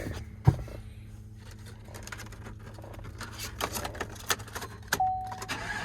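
Small clicks and handling noises in the cab of a 2017 GMC Sierra pickup, with a sharp knock about half a second in. A short steady chime tone sounds near the end, as the truck is readied for starting.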